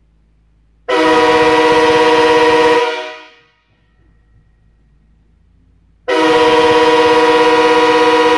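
Nathan Airchime K5HA hybrid five-chime locomotive air horn, with bells 1, 2, standard 3, 4A and 5, heard from right up against it. It sounds two long chord blasts of about two seconds each, the first about a second in and the second near the end. Each blast starts abruptly and fades out quickly when released.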